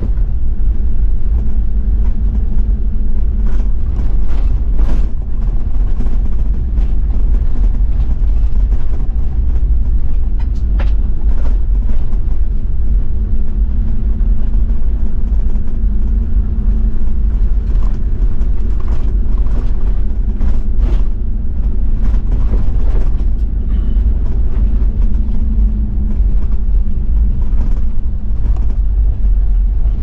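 Toyota Land Cruiser 70's 1HZ straight-six diesel running steadily under way on a dirt forest road, with tyre and gravel noise and short knocks and rattles scattered throughout.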